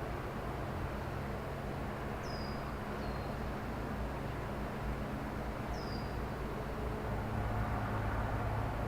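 Excavator's diesel engine running steadily down the road, a low hum that grows a little louder about seven seconds in. Three short, high bird chirps, each dropping in pitch, come through about two, three and six seconds in.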